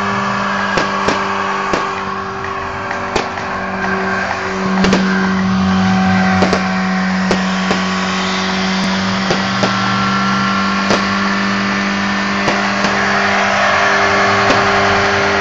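Toyota Starlet's engine held at high, steady revs during a smoky burnout, its tyres spinning on the spot. Sharp cracks and pops break into the engine note at irregular intervals.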